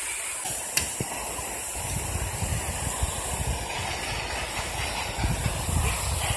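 Steady rushing hiss of river water spilling over and below a low dam, with an uneven low rumble building from about two seconds in. A single sharp click just under a second in.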